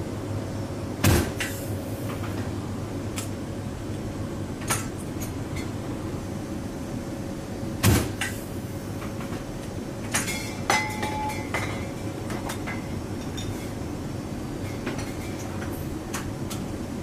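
Steady drone of the AC-130J's four turboprop engines heard inside the cargo cabin, broken by two heavy bangs about seven seconds apart from the 105 mm howitzer firing and being worked. Smaller metallic knocks and clanks with a brief ringing follow the second bang.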